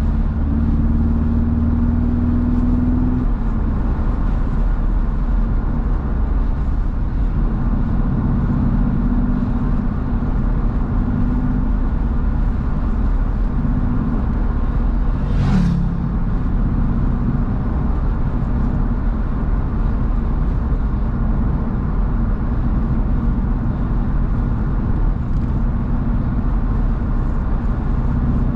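BMW roadster driving at speed: a steady engine drone over heavy road and wind rumble, the engine note rising slightly over the first few seconds. About halfway through, a brief whoosh briefly stands out over the drone.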